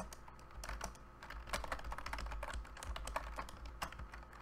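Typing on a computer keyboard: an uneven run of quick keystrokes.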